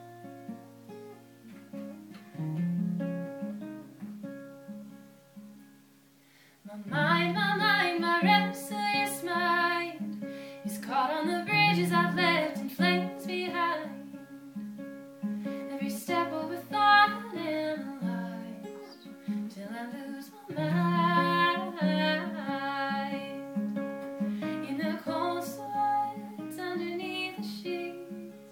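Acoustic guitar played solo: quiet picked notes die down over the first six seconds, then louder strumming starts about seven seconds in and carries on.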